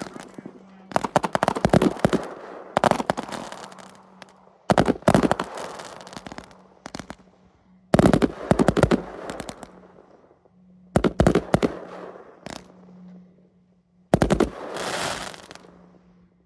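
Fireworks going off in volleys of rapid sharp bangs, about six volleys a few seconds apart, each fading out. The last volley ends in a longer crackle.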